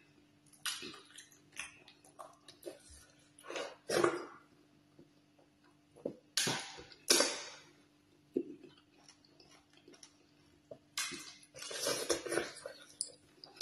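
Close-up mouth sounds of eating fufu and slimy ogbono soup by hand: irregular wet chewing, lip smacks and finger-sucking, in clusters with short pauses between, over a faint steady hum.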